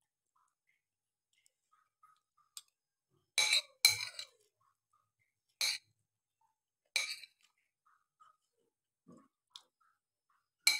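A metal spoon clinking against a porcelain plate while scooping rice: a few sharp clinks, the loudest two close together about three and a half seconds in, and some faint ticks.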